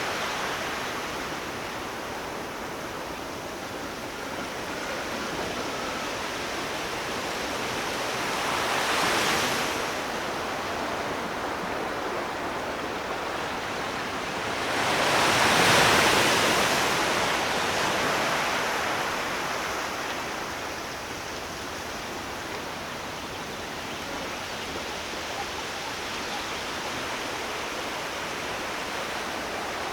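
Ocean waves washing onto a shore: a steady rushing wash that swells twice as waves come in, about a third of the way in and more loudly around the middle, then settles back.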